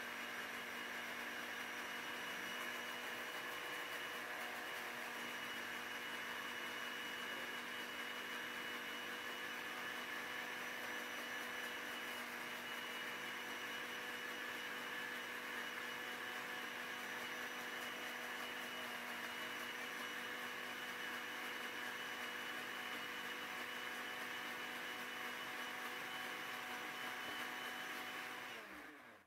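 Countertop blender motor running steadily, a whir with a faint hum, as it emulsifies egg and oil into mayonnaise. It cuts off near the end.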